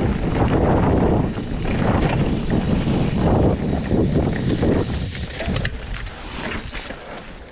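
Wind noise buffeting an action camera's microphone while a full-suspension mountain bike rides a forest trail. It eases off over the last couple of seconds, leaving light clicks and rattles from the bike on the trail.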